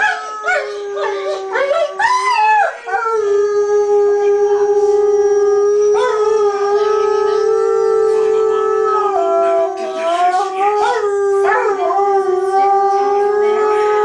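A wolf and a man howling together: long, held howls with overlapping howls sliding up and down over them, busiest at the start and again near the end.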